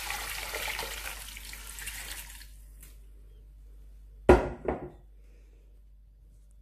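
Water poured from a glass jug into a cooking pot of meat and onions, splashing for about two and a half seconds and then stopping. About four seconds in come two sharp clunks of kitchenware close together, the loudest sounds here.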